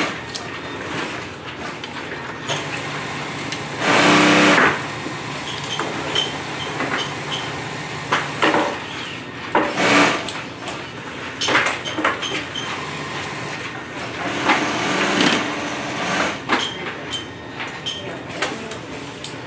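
Industrial sewing machine stitching in short bursts, the longest about a second, with a steady low motor hum between some of them. Between the bursts there are knocks and rustles of nylon webbing and fabric being handled at the machine.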